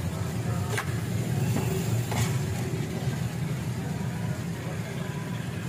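Two flat metal scrapers clink and scrape on a steel griddle as cooked shawarma chicken is chopped and tossed, with a couple of sharp metal clinks. Under it runs a steady low engine-like rumble.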